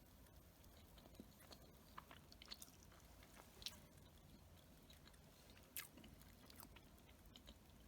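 Faint eating sounds: quiet chewing with a few scattered small clicks and taps.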